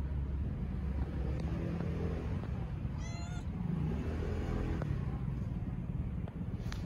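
A black street cat gives one short meow about three seconds in, over a steady low background rumble.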